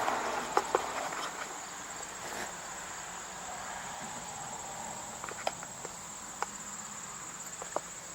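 Insects chirring steadily in a continuous high-pitched drone, with a few light clicks.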